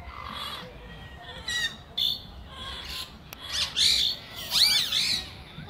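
Infant long-tailed macaque giving high-pitched squealing cries. A few short chirps come first, then a run of louder rising-and-falling squeals in the second half.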